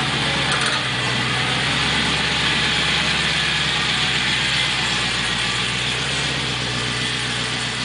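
A car engine idling steadily, over a constant hiss of outdoor background noise.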